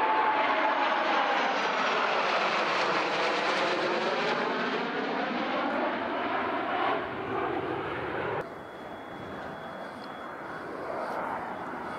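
Jet noise from a pair of Sukhoi Su-30SM fighters' twin turbofan engines as they fly past, a loud rush with a slow swooshing sweep in pitch. About eight seconds in it cuts abruptly to quieter jet noise with a steady high whine from a Su-30SM on the runway.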